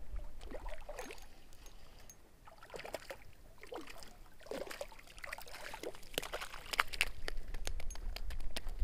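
Small trout splashing at the water's surface as it is reeled in to the bank, with scattered short splashes and clicks, more of them in the second half.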